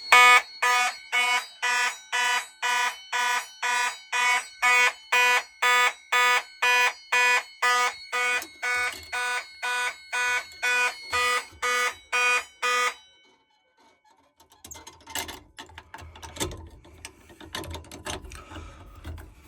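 Fire alarm horn sounding in evenly spaced blasts, about two a second, set off by pulling a manual pull station. It cuts off suddenly about thirteen seconds in, followed by faint clicks and handling noise.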